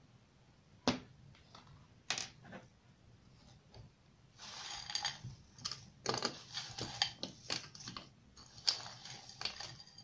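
Sliced champignon mushrooms being tipped and scraped out of a glass bowl into a plastic bowl of chopped vegetables. There are a couple of separate knocks, then from about four seconds a run of rustling with many small clicks.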